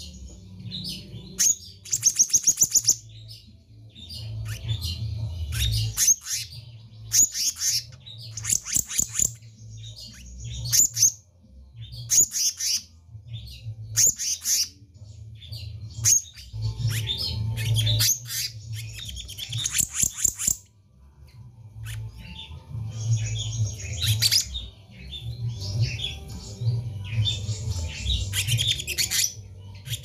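Black-naped monarch singing vigorously: repeated bursts of sharp, high chirps and fast rattling trills with short pauses between them, over a low background rumble.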